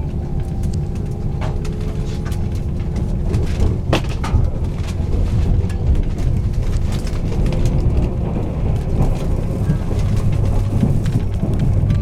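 Cabin noise inside a 485-series electric limited express train pulling out of a station: a steady low rumble from the running gear, with scattered clicks and knocks from the wheels on the track.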